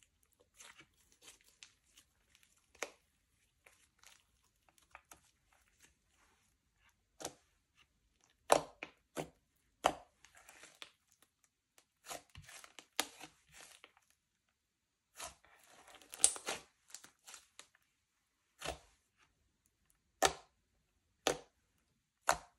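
Slime being stretched, folded and squished by hand, giving irregular sharp pops and clicks with softer crackling between them.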